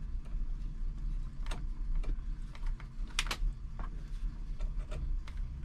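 A handful of small, irregular clicks and taps from hands handling cables and plastic connectors against a metal computer case, over a steady low hum.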